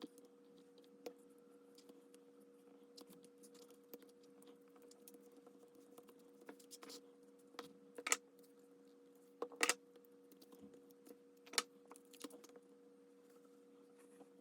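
Scattered light clicks and taps of craft materials being handled on a desk, a few louder knocks about two-thirds of the way through, over a faint steady hum.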